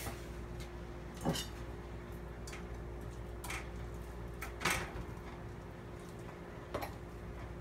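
Diced raw chicken tipped from a plastic cutting board into a skillet: a few separate soft knocks and taps of the pieces and board against the pan, over a steady low hum.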